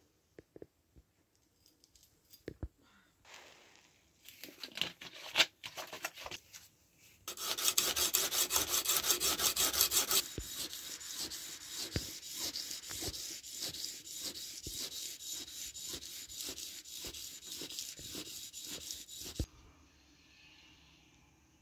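Rapid back-and-forth hand strokes scraping across a steel kitchen-knife blade clamped in a vise, as the blade is abraded by hand. A few light clicks come first; the strokes start about four seconds in, get much louder about seven seconds in, and stop suddenly near the end.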